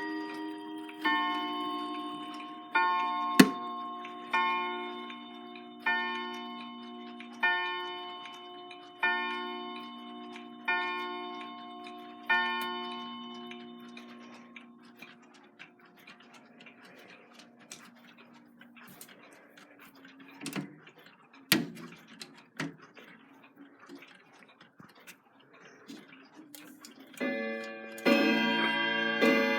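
A chiming clock striking the hour: eight ringing strokes of the same chord, about one every one and a half seconds, each dying away. After the strokes a quieter ticking goes on with a few knocks, and near the end another clock starts a dense, many-toned chime.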